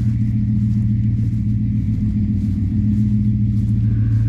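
A motor or engine running steadily, a loud, even low hum with no change in speed.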